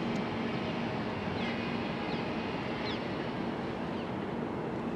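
Steady rumble and low hum of a suburban electric train approaching from some way off, with wind on the microphone. A small bird gives a few short chirps that fall in pitch.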